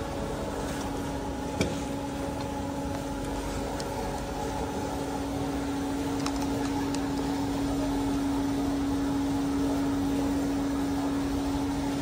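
Induction gold-melting machine running with a steady electrical hum that swells about halfway through. A single light knock comes about one and a half seconds in.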